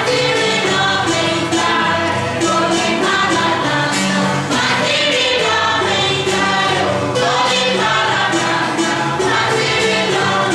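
A group of voices singing together in chorus over percussion that keeps a steady beat.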